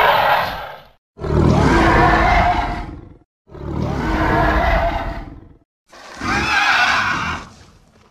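Cartoon sea monster's roar sound effects, played one after another: one is ending about a second in, then three more roars of about two seconds each follow, each separated by a brief silence.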